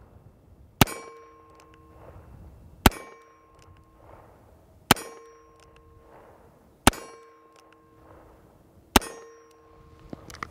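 Five shots from a Korth Mongoose .357 Magnum/.38 Special revolver fired slowly in single action, about one every two seconds. Each shot is followed by about a second of metallic ringing from a struck steel target.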